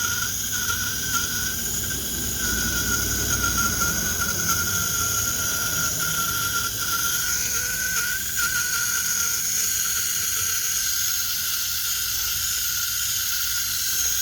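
Tap water running steadily, with a faint high whine.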